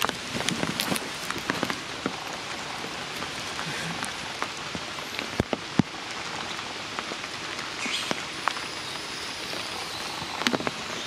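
Steady rain falling, with scattered sharp clicks of drops landing close by, two of them louder about five and a half seconds in.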